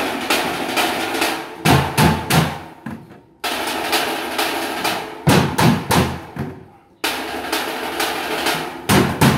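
A percussion ensemble beats blue plastic water jugs and a drum with sticks, playing the same short break three times. Each time a rapid rattle of strokes is followed by three loud accented hits, and the sound dies away before the next begins.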